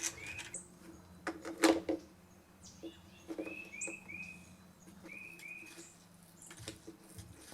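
Rubber primer bulb on a two-stroke blower's new carburetor pressed repeatedly, giving short squishy clicks, with a few short high chirps in between.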